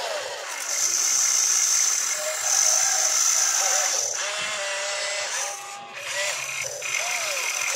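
RC excavator's electric motors whining high and steady as the boom and bucket move through the soil, stopping and restarting a few times. A wavering, warbling call runs underneath.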